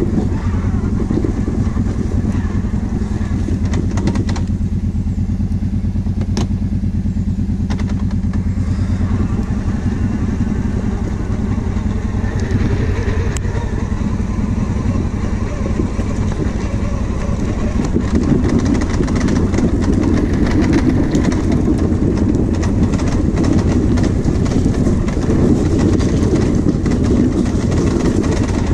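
Kawasaki KVF 750 Brute Force ATV's V-twin engine running steadily under light throttle while riding, getting louder and rougher about two-thirds of the way in.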